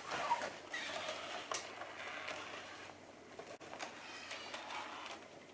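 Sony aibo robot dog moving, its joint motors faintly whirring and clicking, with light taps and shuffling that fade toward the end.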